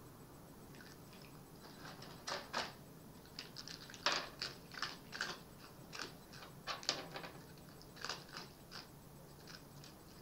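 Red fox eating from a bowl, a run of irregular crunching and chewing sounds that begins about two seconds in, over a faint steady low hum.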